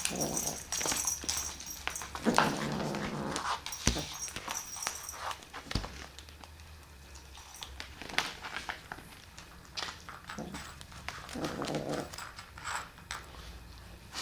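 Kitten growling low in short spells of about a second while chewing and clutching a pom-pom string toy, with scratchy clicks and taps from the toy and its claws on the floor between growls.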